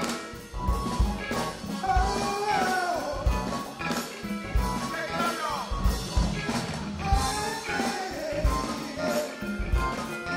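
Live soul band playing over a steady drum and bass beat, with a lead melody line that slides and bends in pitch.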